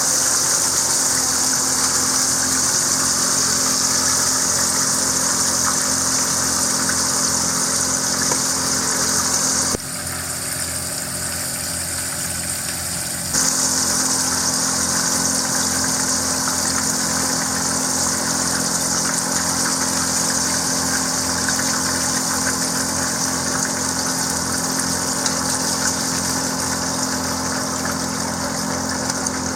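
Chicken pieces deep-frying in hot oil in a skillet, a steady sizzling hiss over a low steady hum. The sizzle drops away suddenly about ten seconds in and comes back a few seconds later.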